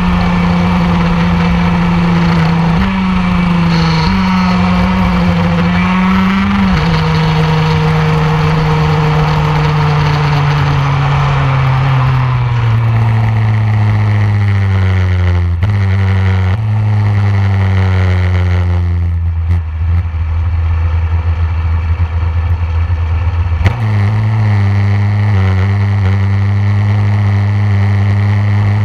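TM KZ10 125cc two-stroke shifter kart engine heard on board, running at high revs at first. Its pitch then falls steadily as the kart slows, with several sudden jumps in pitch from gear changes. It runs at low revs in the last part.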